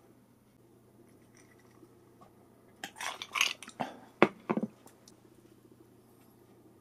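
Ice cubes clinking in a ceramic mug of iced tea, a quick run of sharp clinks about three seconds in, then a knock as the mug is set down on a wooden tray.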